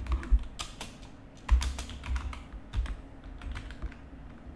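Typing on a computer keyboard: irregular key clicks with soft thuds, a few strokes louder than the rest.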